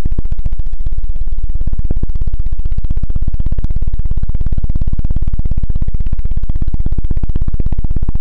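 The 'helicopter' ASMR trigger: a hand patting rapidly over the ears of a binaural dummy-ear microphone, heard as an even stream of close, low thumps at about ten a second.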